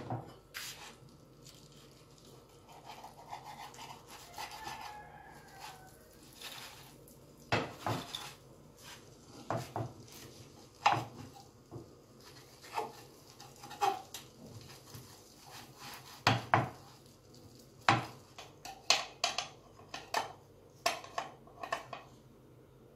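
A utensil scraping and knocking against a frying pan while breaking up scrambled eggs, in irregular sharp strokes that come mostly from about seven seconds in.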